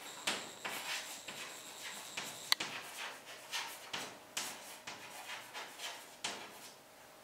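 Chalk writing on a blackboard: a string of short scratches and taps as each letter is stroked out, with one sharper tap about two and a half seconds in.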